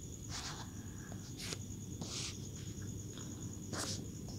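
Insects trilling steadily at a high pitch in the background, with a few short soft hisses.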